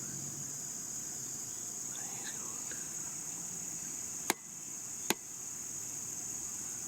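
Steady high chirring of crickets and other insects, broken about four seconds in by two sharp cracks under a second apart.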